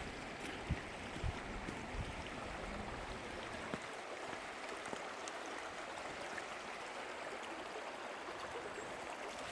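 Creek water rushing steadily. Low wind buffets on the microphone in the first few seconds.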